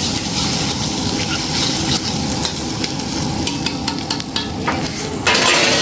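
Goat meat frying, a steady sizzle with scattered small crackles that swells louder near the end.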